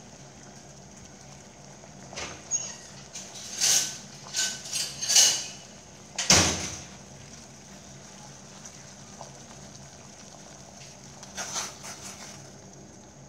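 Water boiling hard in a stainless steel pot on an induction cooker, over a steady low hum. Between about two and seven seconds in come several loud clatters and a deep thump. Near the end, a spoon stirs the pot.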